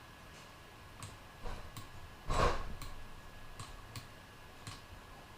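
Scattered computer mouse and keyboard clicks at a desk, about eight sharp clicks a fraction of a second to a second apart, as the 3D view is rotated and edited. A louder, brief rustling burst comes about two and a half seconds in, over a faint steady hum.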